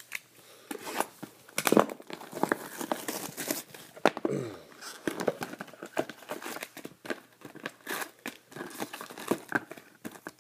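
Cellophane shrink-wrap being torn off a cardboard trading-card box and crumpled, then the box lid opened and foil card packs handled: an irregular run of crinkles, rips and sharp clicks, loudest about two and four seconds in.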